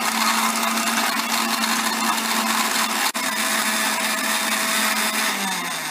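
Electric countertop blender running at speed, blending a jug of ice and milk into a milkshake: a steady motor hum under a dense whirr of churning liquid. Near the end the motor starts to wind down.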